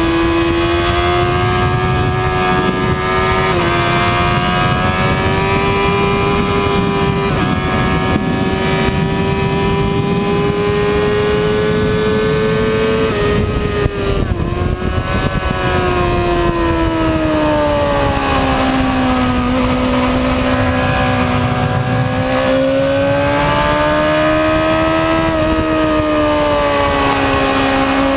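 Sport motorcycle engine at high revs on a race track, recorded onboard with wind noise. The pitch climbs slowly with small drops at upshifts, falls about halfway through as the bike brakes and downshifts for a corner, then climbs again as it accelerates out.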